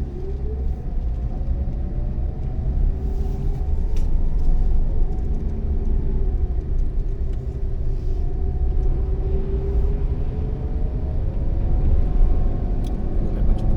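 Nissan Kicks kei SUV driving, heard from inside the cabin: heavy low road and engine rumble with an engine tone that rises in the first second, holds steady, then eases off about ten seconds in.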